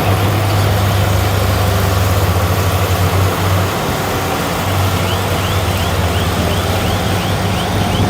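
Heavy diesel engine of earthmoving machinery running steadily at work, with a repeating high squeak about two to three times a second over the second half.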